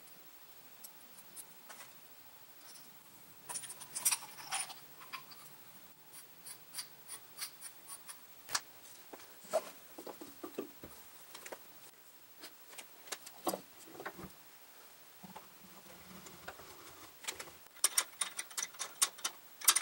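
Scattered metal clinks, taps and clicks of machine parts and tools being handled during reassembly of an Atlas benchtop horizontal milling machine, with one ringing clink about four seconds in and a quick run of clicks near the end.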